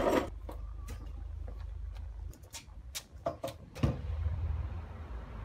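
Scattered knocks and clicks of timber being handled and set in place, over a low steady rumble. A cluster comes between about two and a half and four seconds in, and the last knock is the loudest.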